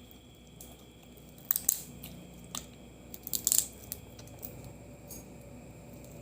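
Crab shell cracking and crunching while eating: a cluster of sharp cracks about a second and a half in, a single crack, then another cluster about three and a half seconds in.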